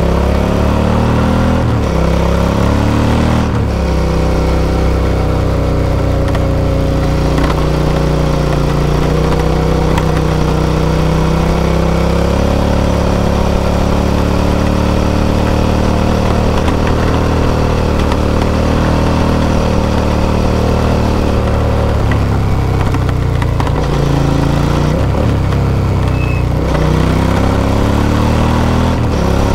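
V-twin motorcycle engine running under way, heard from the rider's seat. The engine note holds fairly steady for long stretches, with its pitch dropping and picking up again a few seconds in and once more near the end as the revs change.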